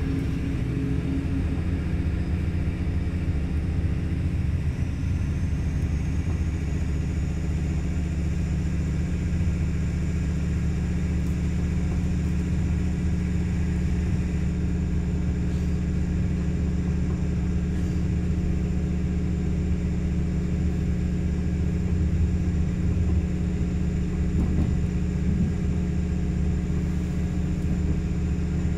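Diesel engine and running gear of an AKN VTE/VTA diesel multiple unit, heard on board as a loud, steady low hum. A thin high whine rises over the first several seconds and then holds. The recording is distorted by an over-driven microphone.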